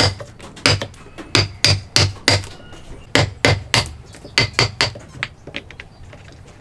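Chisel driven into a wooden block by hammer blows, chopping out a joint: sharp knocks in quick runs of two to four, about three a second, fading to a few lighter taps near the end.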